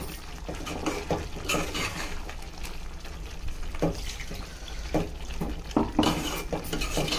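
A steel spoon stirring a thick brinjal and potato curry in a metal pot, clinking and scraping against the pot at irregular moments, over a low steady hum.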